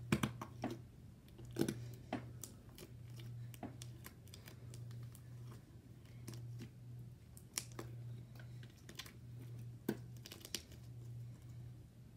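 Homemade slime squeezed and pressed by hand, crackling with irregular sharp pops, several in quick clusters, over a steady low hum.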